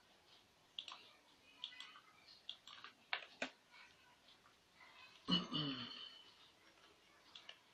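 Scattered computer mouse clicks as menus and tools are worked. About five seconds in comes a louder, brief low-pitched voice sound from a person.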